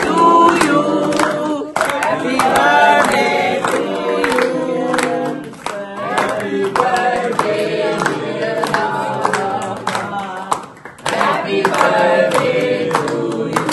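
A small group of people singing together, clapping along in a steady rhythm, with a brief break about eleven seconds in before the singing picks up again.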